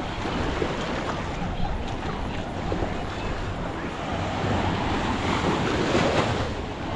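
Sea surf washing onto a beach, with wind buffeting the microphone; the wash swells louder for a couple of seconds toward the end, as a wave breaks.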